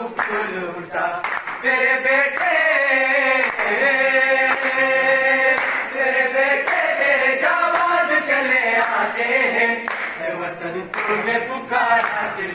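A group of boys singing a milli naghma, a patriotic song, together in long held lines, with some clapping.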